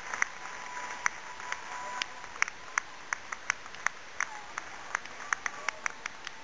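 Scattered applause from a small crowd: separate, irregular handclaps, a few each second, rather than a dense roar.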